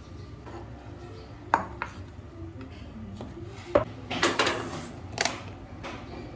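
Dishes and kitchen utensils being handled: several sharp clinks and knocks spaced unevenly, with a small cluster of them about four seconds in.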